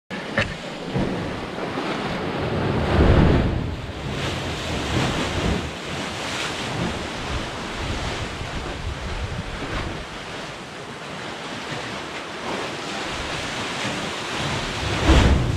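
Ocean surf surging and churning in a narrow rock chasm, with wind noise on the microphone. The wash swells loudest about three seconds in and again near the end.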